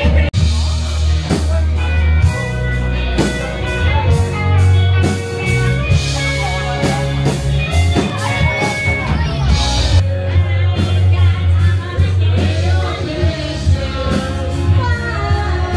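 Rock music with a singer, electric guitar, a heavy bass line and steady drums. The sound drops out for a split second just after the start, like a cut.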